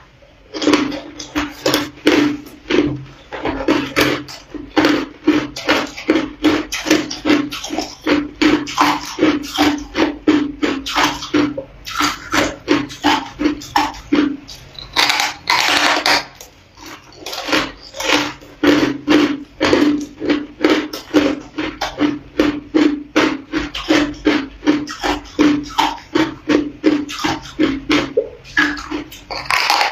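Hard ice crunching between the teeth as a block of frozen ice is bitten and chewed, in quick, steady crunches about three or four a second. A longer, louder crunch comes just past halfway.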